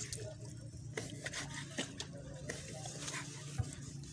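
A knife slicing through soft raw seafood flesh on a wooden board: short taps of the blade striking the board, about two a second and unevenly spaced, over a steady low hum.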